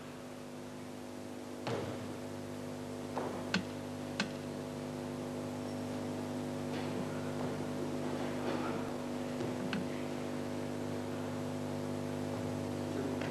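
Steady electrical mains hum on an old videotape recording, with a few short sharp knocks about two, three and a half and four seconds in, and another near ten seconds. These are partners landing on the mat as they are thrown.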